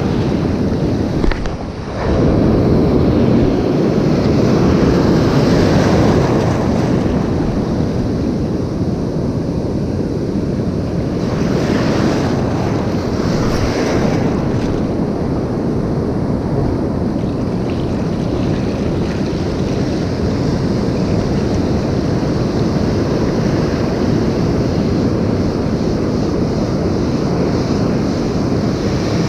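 Sea surf washing and breaking on a beach, with wind buffeting the microphone; the noise swells and eases slowly and dips briefly about a second and a half in.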